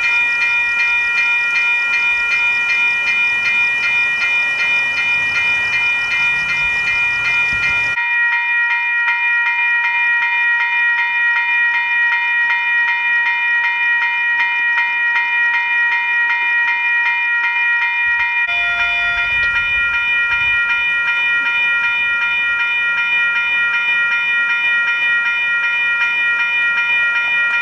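Railroad grade-crossing warning bell ringing on and on, a fast, even, metallic ding repeated without a break while the gates are down.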